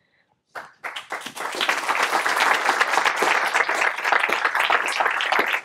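Audience applauding: after a brief hush, many hands start clapping about half a second in, swell within a second and keep on steadily.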